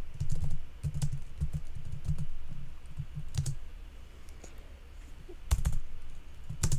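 Typing on a computer keyboard: a quick run of key clicks for the first three seconds or so, then a lull with a few separate keystrokes near the end.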